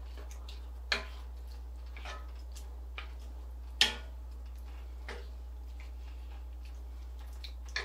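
Wooden spoon knocking and scraping against a skillet while a thick meat sauce is stirred: a handful of sharp clicks spread over several seconds, the loudest about four seconds in, over a steady low hum.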